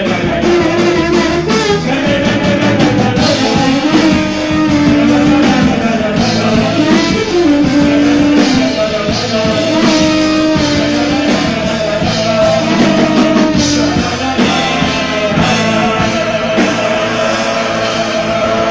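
Live band playing, with several men singing together into microphones over trombone, accordion, electric guitar and drums. Held sung notes ride over a steady, loud backing with no break.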